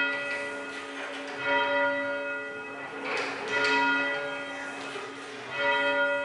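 Church bells ringing: about five strikes a second or two apart, each one ringing on with a steady, many-toned hum.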